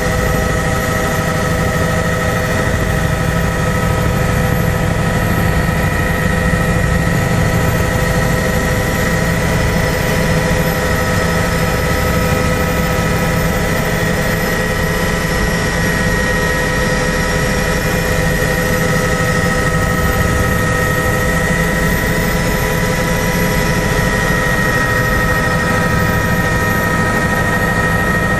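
Helicopter cabin noise in flight: a steady low rotor and engine rumble with a constant high whine over it, heard from inside the cabin.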